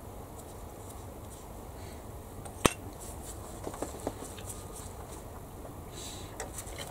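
A sharp tap about two and a half seconds in, then a few fainter clicks and ticks, from small tools and plastic kit parts being handled and set down on a workbench, over a low steady room hum.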